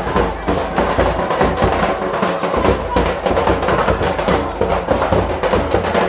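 Traditional drums played live for a line dance: a busy, steady beat of sharp strokes that does not pause.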